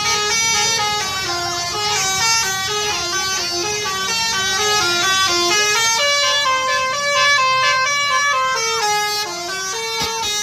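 Bus telolet horn, a multi-note musical horn, playing a tune that steps from note to note without pause, moving to higher notes about six seconds in.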